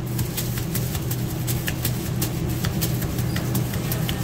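Steady low hum of commercial kitchen machinery, with a few faint taps and paper rustles as gloved hands press a raw beef patty flat on deli paper.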